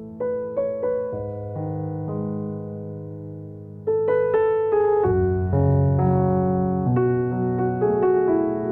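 Piano playing slow chords, each note struck and then fading, growing louder about four seconds in with deeper bass notes joining.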